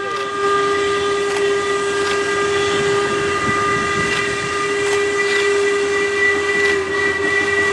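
Whistle of Sri Lankan Railways steam locomotive B2b 213 blowing one long, steady blast.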